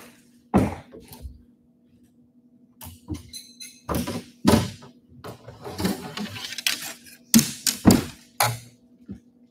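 Irregular knocks, thumps and clatter of fishing rods and tackle being rummaged through in a bass boat's storage compartment, with several sharp bangs close together in the second half.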